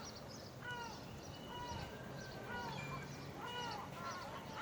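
Seagulls calling: a run of repeated cries that rise and fall in pitch, several overlapping, over a faint steady low hum.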